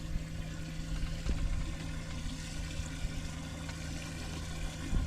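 A steady low mechanical hum of a small motor running, over a low rumble.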